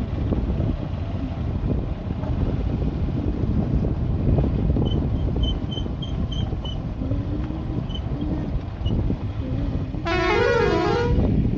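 Motorcycle under way, a dense low rumble of engine, tyres and wind buffeting the microphone. About ten seconds in, a short, loud pitched sound with a wavering tone cuts across it for about a second.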